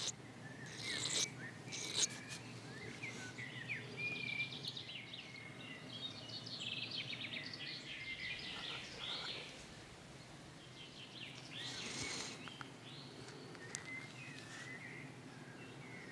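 Birds chirping and singing faintly, a string of short high calls and little glides, with a couple of brief rushes of noise, about a second in and near twelve seconds.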